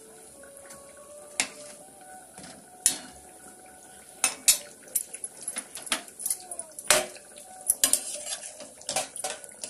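A metal ladle clinking and scraping against a steel cooking pot while potato and soybean curry is stirred, in irregular sharp clinks.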